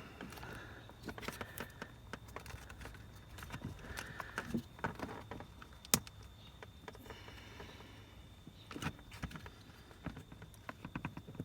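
Hard plastic clicking, tapping and scraping as a power seat switch bracket is worked out of its retaining clips by hand, with one sharp click about six seconds in.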